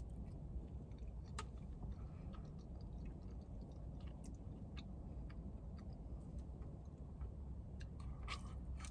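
A person chewing a mouthful of soft macaroni cheese, with a few faint scattered clicks, over a low steady rumble inside a car.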